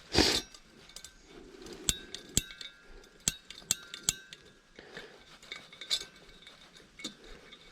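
A gas camping burner's push-button piezo igniter clicking again and again, about eight sharp, irregular clicks with a metallic ring, without lighting, because the gas canister is nearly empty. A short rush of noise comes right at the start.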